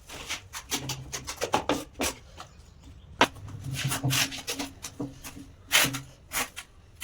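Irregular scraping and tapping strokes of a mason's hand tools working on mortar and tiles during wall tiling, with a few sharper knocks.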